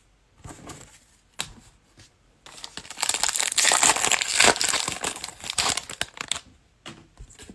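A foil trading-card pack wrapper being torn open and crinkled by hand. The rustle starts about two and a half seconds in and lasts about four seconds, with a few light taps of handling before and after.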